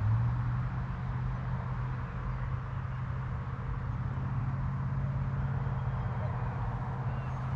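A steady low engine hum holding one pitch, under a faint wash of outdoor noise.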